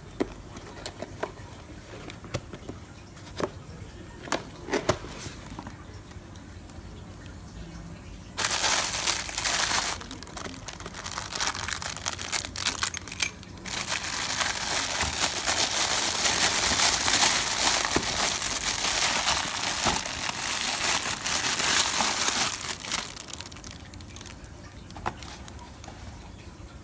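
Light taps and clicks of a cardboard box being handled, then a long stretch of loud plastic crinkling as the clear plastic bag is pulled off a coil-over shock absorber. The crinkling comes in two spells, from about eight seconds in and again from about fourteen seconds, and fades out near the end.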